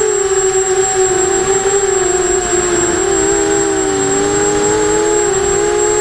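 Eachine 250 Racer quadcopter's brushless motors and propellers whining, several close pitches wavering and beating against each other as the throttle shifts, with a thin steady high-pitched tone above.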